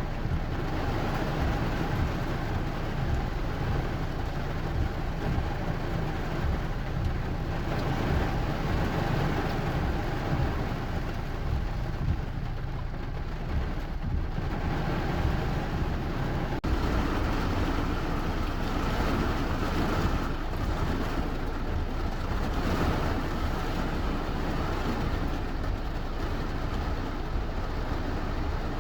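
Steady rain, a continuous even wash of noise heaviest in the low end, with a deep rumble under it.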